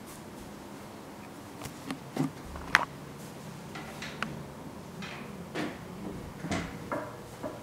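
Footsteps on a hard floor, heard as irregular light knocks and clicks over a steady background hiss, starting about a second and a half in; a sharp click a little under three seconds in is the loudest.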